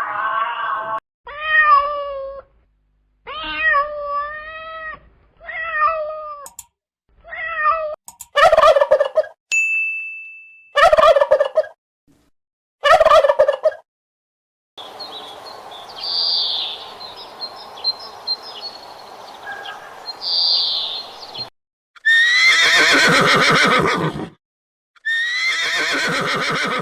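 Turkeys gobbling in a string of short separate calls with pauses between them. In the middle there is a longer stretch of noisy farmyard background with high chirps.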